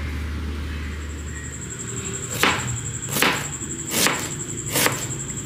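Knife chopping on a cutting board: four sharp strokes about three-quarters of a second apart, starting about two and a half seconds in. A thin, steady high-pitched tone sounds alongside them.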